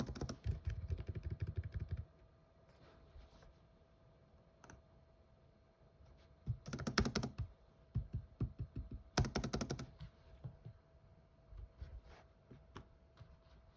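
Keys typed in quick bursts on an Asus ROG Strix G15 laptop keyboard: three runs of rapid key presses, the first at the start and the others about seven and nine seconds in, with scattered single taps between. A faint steady tone runs underneath.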